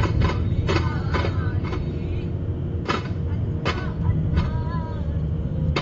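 Daffs, hand-held frame drums, struck by a group in a Duff Muttu performance: irregular sharp slaps over a constant low rumble, with a few brief vocal calls.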